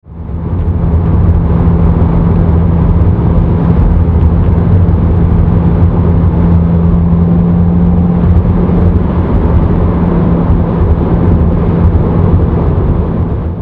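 Exhaust note of a 2015 Subaru WRX's turbocharged flat-four through a Tomei Expreme Ti titanium catback exhaust, with the factory J-pipe and cats still in place. It runs steadily at an even pitch with a deep tone.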